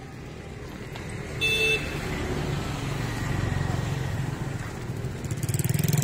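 A motor vehicle's engine running past, growing louder toward the end, with a brief horn toot about a second and a half in.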